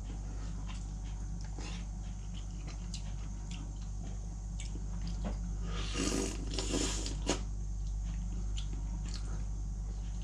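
Someone eating khinkali dumplings: scattered small clicks and mouth noises, busiest and loudest about six to seven seconds in, over a steady low hum.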